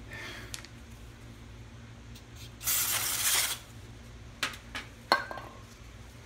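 Light metallic clinks of a socket and wrench being handled, with a few sharp ticks in the second half. In the middle comes a hiss lasting about a second, the loudest sound here. A low steady hum runs underneath.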